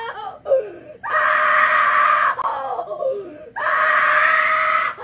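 Two long, steady screams, each held for over a second, with a short gap between them filled by faint sliding vocal sounds.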